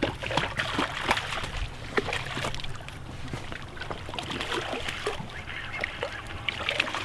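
A hooked striped bass splashing and thrashing in shallow water at a rocky edge as it is reeled in: irregular short splashes over a steady low rumble.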